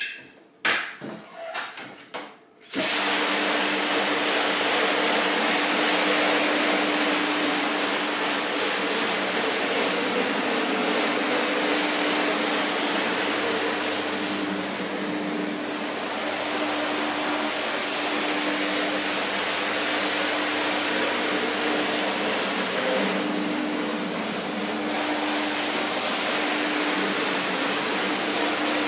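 Carpet-cleaning vacuum machine switched on about three seconds in after a few knocks, then running steadily with a constant motor hum under the rush of air.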